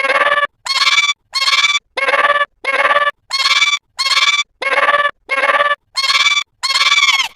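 A short, pitched, honk-like cartoon sound clip looped over and over: the same half-second sound repeats about a dozen times at an even pace, a little under twice a second, with silence between repeats.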